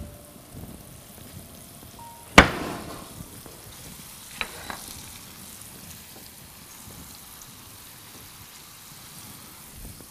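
Flour-dredged chicken pieces sizzling steadily as they fry in hot oil in a frying pan. A sharp knock rings out about two seconds in, followed by two lighter clicks a couple of seconds later.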